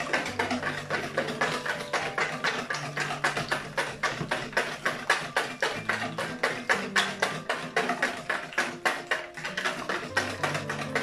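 Wire whisk beating a thin egg-and-milk batter in a plastic bowl: a rapid, even clicking and sloshing of the wires against the bowl, about five strokes a second. Soft jazz piano music plays underneath.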